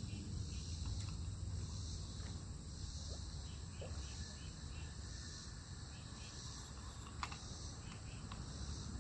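Insects chirping steadily in a repeating high pulse, over a continuous low rumble, with a single sharp click about seven seconds in.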